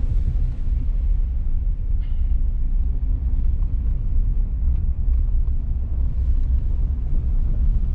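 Vehicle driving along a wet gravel road, heard from inside the cab: a steady low rumble of tyres and engine.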